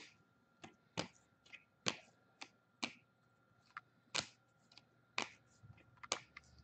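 Trading cards from a just-opened hockey pack being flicked through one at a time, each card giving a short, sharp snap, roughly once a second at uneven spacing.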